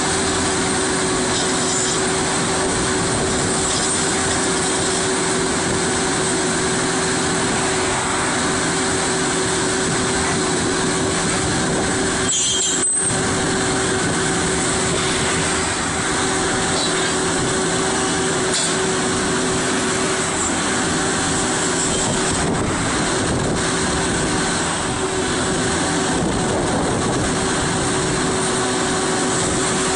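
Vermeer Navigator horizontal directional drilling rig running steadily, its diesel engine and hydraulics making a constant mechanical drone with a steady tone running through it.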